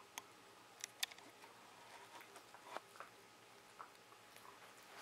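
Beagle mouthing and nibbling a Dentastix dental chew: faint, scattered clicks and small taps, the sharpest about a second in.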